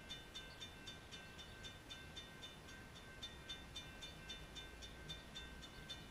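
Faint, fast, even ringing of a railroad crossing bell, about four strikes a second.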